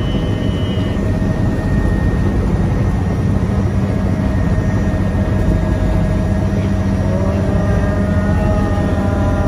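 Bell 505 Jet Ranger X helicopter running, heard from inside the cabin: a loud, steady drone of turbine and rotor.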